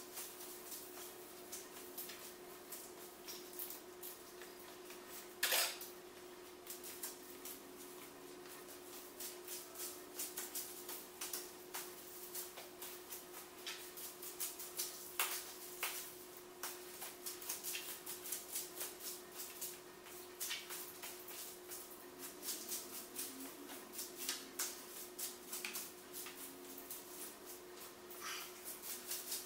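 Steady low hum of room tone with scattered light clicks and crackles, and one louder crackle about five seconds in.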